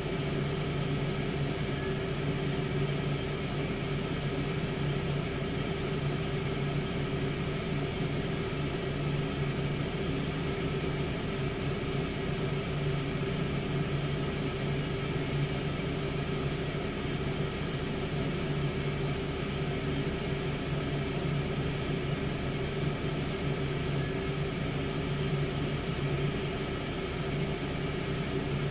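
Tower air fryer oven running mid-cook: its fan and heater give a steady hum over an even rush of air.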